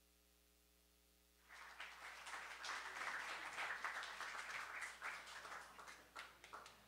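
Small audience applauding after a solo acoustic guitar piece. The clapping starts suddenly about a second and a half in, holds steady, and then thins to a few scattered claps near the end.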